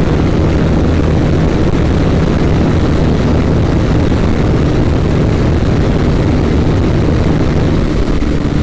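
Motorcycle engine running at a steady, unchanging pitch, with a steady rushing noise over it.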